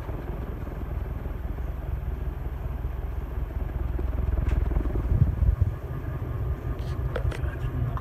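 Fairwind ceiling fan running at its top speed, its blades pushing air in a steady low rumbling whoosh. A few faint clicks near the end.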